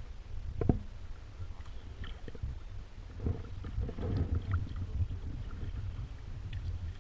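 Kayak paddle strokes in calm water: soft splashes and drips as the blade dips and lifts, with a sharp knock under a second in, over a steady low rumble.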